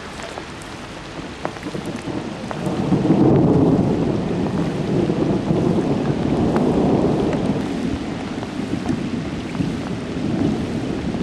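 Heavy rain falling steadily, with a long rumble of thunder that swells about two and a half seconds in, rolls on for several seconds, eases, then builds again near the end.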